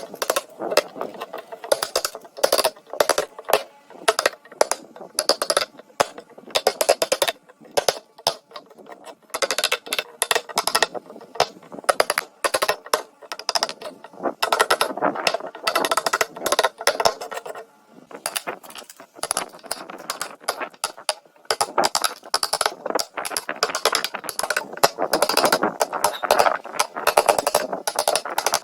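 Hand tools working wood: a dense, irregular run of knocks, taps and clatter, briefly easing off about seven seconds in and again about eighteen seconds in.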